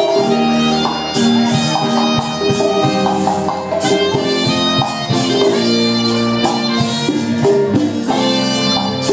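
Live Latin dance band playing: an alto saxophone carries the melody over the scrape of a metal güira and percussion.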